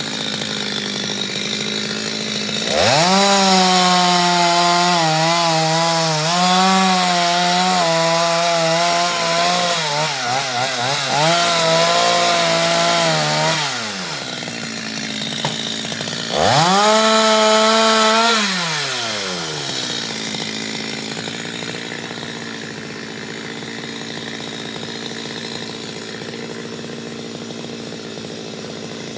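Chainsaw idling, then revving to full throttle about three seconds in. Its pitch dips and wavers as it cuts into mango wood, and it drops back to idle about halfway through. It gives a second, shorter burst of full throttle a couple of seconds later, then settles back to a steady idle.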